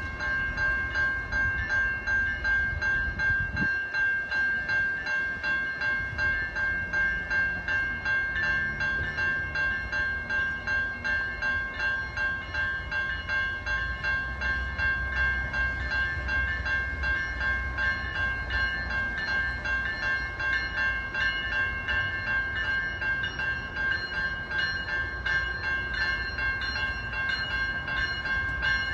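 GO Transit commuter train approaching with its cab car leading, a low rumble under a bell that rings steadily at about two strokes a second.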